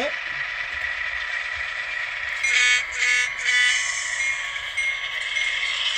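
Sound-equipped N scale EMD SD9 model diesel's decoder playing its prime mover running, thin and high through the model's tiny speaker. About halfway through, its horn sounds three short blasts.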